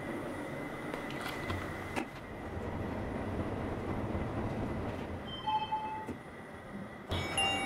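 Otis passenger lift car descending: a steady rumble of the moving car, with a click about two seconds in and a brief tone around six seconds. Music comes in near the end.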